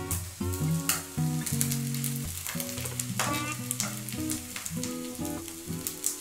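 Hot fried rice scraped with a silicone spatula out of a frying pan into a small stainless-steel bowl, with a light sizzling hiss and scattered scrapes and taps, over acoustic guitar music.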